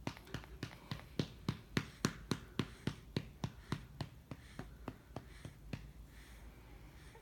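Quick, evenly spaced taps or pats, about three and a half a second, loudest around two seconds in, then fading out and stopping about six seconds in.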